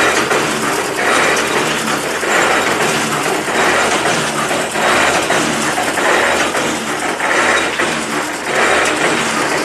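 Well-drilling rig at work: a loud, steady mechanical clatter over a low hum, pulsing a little more than once a second.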